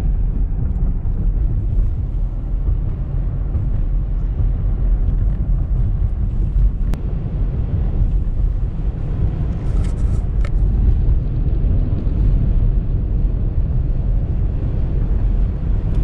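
Blizzard wind gusting against a moving car, heard from inside the cabin as a loud, steady low rumble mixed with tyre and road noise.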